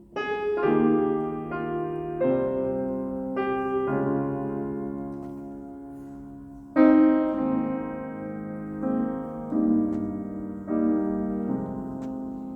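Piano music: slow chords struck one after another, each left to ring and fade, with the loudest chord coming about seven seconds in.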